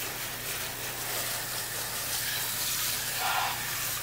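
Steady hiss of water from a garden-hose spray nozzle spattering over a car's engine bay and its covers as it is rinsed.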